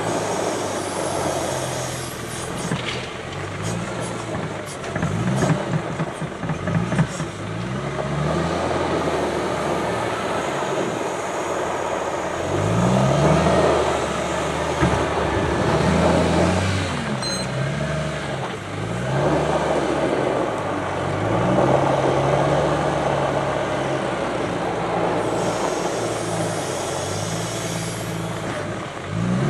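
Volvo L70G wheel loader's six-cylinder diesel engine working through a loading cycle, revving up and down repeatedly as it drives, lifts and reverses. In the first several seconds there is knocking and clatter as a bucket of snow is dumped into the truck's tipper body.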